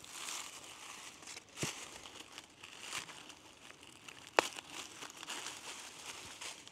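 Crinkly rustling and crunching of dry material being handled or stepped on, with a knock about a second and a half in and one sharp click at about four and a half seconds.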